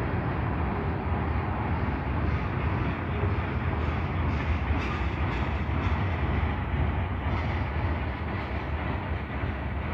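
Freight cars rolling past on steel rails: a steady rumble of wheels on track, with faint scattered clicks and rattles.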